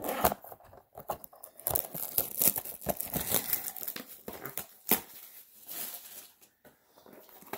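Plastic trading-card wrapping being torn open and crinkled by hand: a run of irregular crackles and rips.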